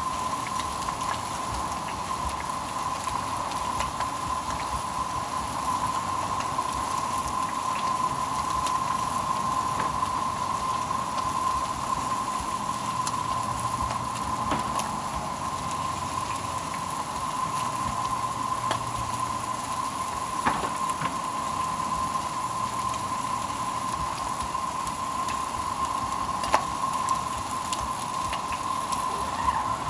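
Food frying in oil in a pan: a steady sizzle with a few scattered pops, over a constant high whine.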